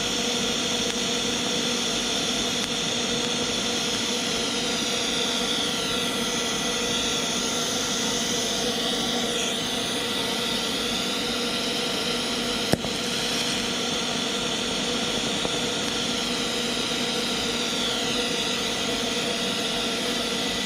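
TIG welding arc running steadily as weld is built up on a snapped M6 bolt stub, a continuous buzzing hiss with steady tones in it. A single sharp click comes a little past the middle.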